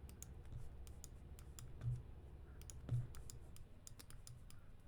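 Scattered computer mouse and keyboard clicks at irregular intervals, with two soft low thumps about two and three seconds in.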